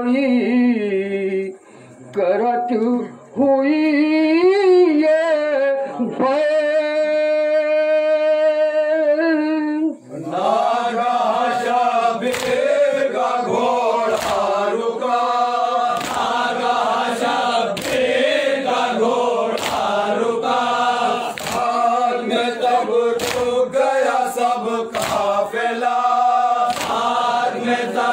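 Unaccompanied male voice reciting a noha (Shia mourning lament) in drawn-out, wavering notes ending in one long held note. About ten seconds in, a group of men joins in chanting, with hands striking chests in matam about once a second.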